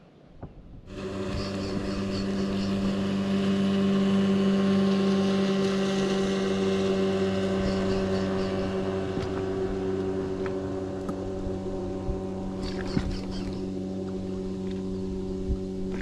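A boat motor running at a steady speed, giving a constant hum that does not change in pitch. It starts abruptly about a second in.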